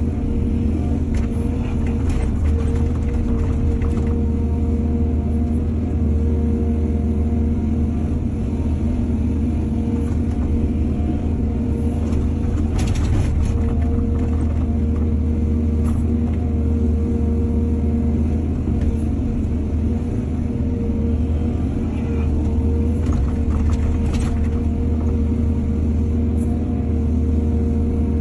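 Excavator's diesel engine running steadily under load, with a few brief knocks or scrapes from the digging and loading, one about halfway through and a couple near the end.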